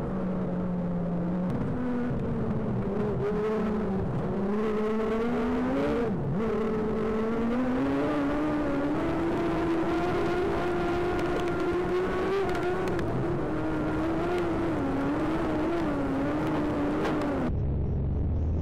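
A speedway race car's engine running at racing speed, its pitch rising and falling with the throttle, with a short lift about six seconds in, then holding high with small wobbles. Near the end it cuts off suddenly and gives way to music with a low throb.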